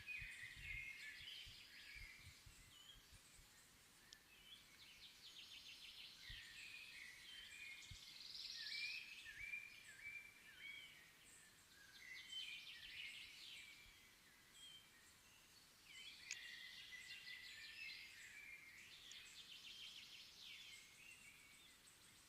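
Faint songbird song: short phrases and fast trills repeating every few seconds.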